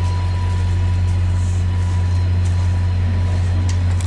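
VIA Rail F40PH diesel locomotive standing at idle, giving a loud, even low drone that does not change.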